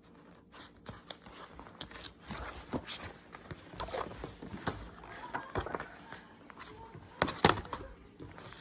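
Scattered light clicks, taps and rustles of small objects being handled, with one sharper click about seven and a half seconds in.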